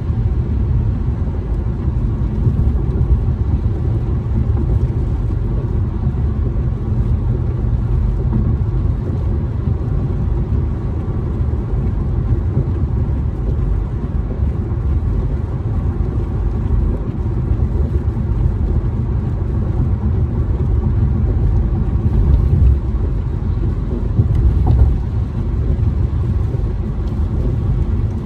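Steady low rumble of a car driving on a wet freeway, heard from inside the cabin: tyre and road noise with the engine underneath.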